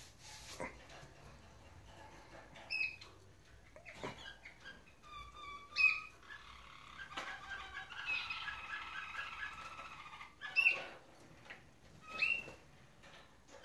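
Caged roller canaries: short sharp calls every few seconds, and from about six seconds in a canary sings a continuous rolling trill for some four seconds. A few light knocks are heard too.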